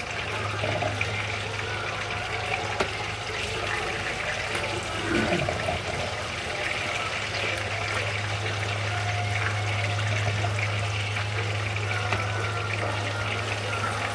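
Water running steadily over a steady low hum.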